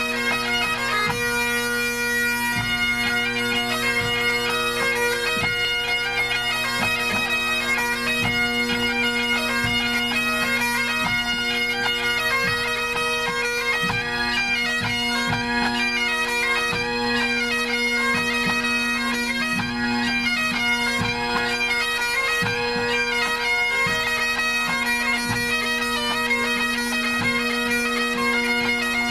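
Pipe band's Great Highland bagpipes playing together at a tune-up: steady, unbroken drones under shifting chanter notes.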